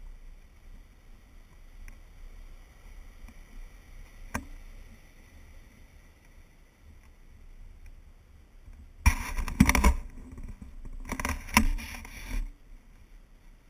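Handling noise on a GoPro mounted on a selfie pole: two loud bursts of rubbing and scraping, each a second or so long, close together in the second half, over a faint low rumble, with a single click a third of the way in.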